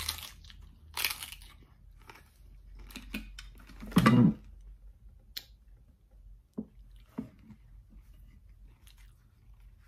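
Crisp tostada shell crunching as it is bitten, followed by chewing with a few sharp crunches. A loud thump about four seconds in stands out above the rest, followed by a few small clicks.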